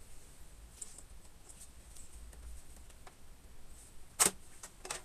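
Handling clicks from unseating a graphics card inside a PowerMac G5 case: a few faint ticks, then one sharp click about four seconds in and a couple more clicks near the end.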